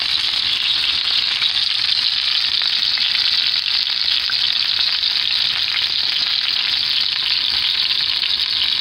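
Seasoned beef pot roast searing in hot oil in a cast-iron skillet: a steady, loud sizzle with fine crackling, the sound of a good hard sear.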